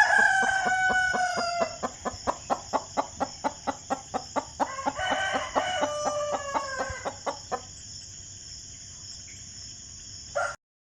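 Rooster crowing twice, a long call falling in pitch at the start and another about five seconds in, with a fast run of short clucks at about four a second between and under them. The clucks stop about seven and a half seconds in.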